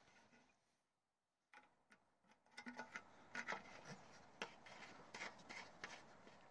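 Faint handling noise from a hand working around a Briggs & Stratton mower engine that is not running: soft rubbing, then a string of small clicks and taps from about two seconds in.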